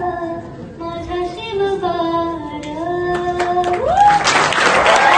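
A woman's voice singing slow, held notes. About four seconds in, the audience breaks into loud applause and cheering.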